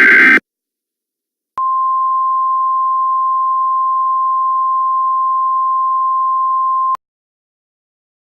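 Emergency Alert System tones: the end of a loud, buzzy digital header burst in the first half second, then after about a second of silence a single steady tone of about 1 kHz held for about five seconds and cut off sharply. This is the attention signal that comes before the spoken alert message.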